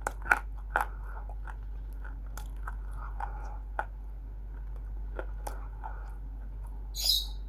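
Roasted multani mitti (fuller's earth clay) being bitten and chewed, with sharp, irregular crunches. A short high squeak comes near the end, over a steady low hum.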